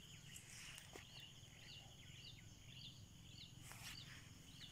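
Near silence, with a faint run of high, evenly spaced chirps from a small bird, about two or three a second.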